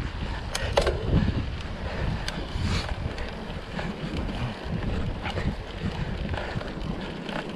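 Wind rumbling on the microphone of a cyclist riding along a trail, with a few scattered sharp clicks and knocks.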